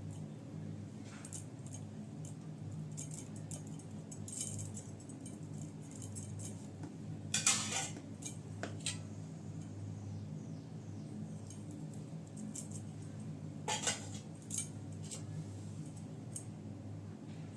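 Light metallic clinks and scrapes of kitchen utensils being handled, with two louder, longer scrapes about seven and fourteen seconds in. A steady low hum runs underneath.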